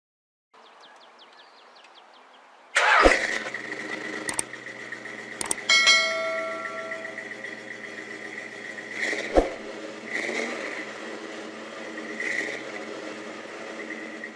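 A 1964 Chevy Nova's engine starting about three seconds in and then running steadily, with several sharp clicks or knocks over it.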